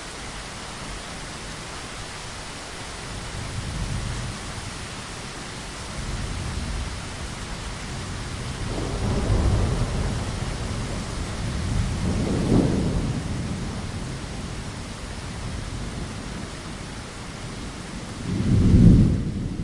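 Steady rain hiss with rolling thunder rumbling in slow swells, several times, the loudest near the end. The high rain hiss drops off suddenly just before the end.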